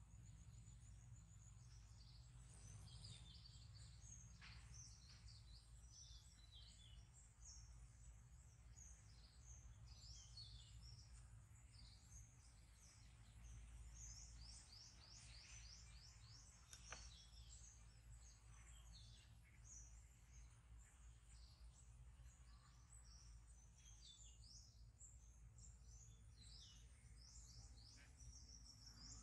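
Faint chorus of small birds chirping, many short high chirps that slide downward in pitch, over a low steady hum. A single sharp click a little past the middle.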